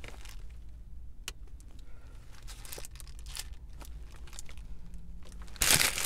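Paper burger wrapper rustling and crinkling as it is handled, with a louder crinkle near the end. A steady low hum runs underneath.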